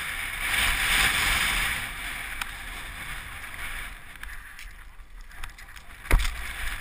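Skis hissing and scraping over packed snow, loudest in the first two seconds and then fading, over a low wind rumble on the helmet camera's microphone. A single sharp knock about six seconds in.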